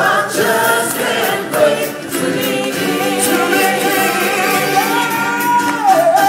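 Live stage-show music with a group of voices singing together. A long held sung note comes near the end.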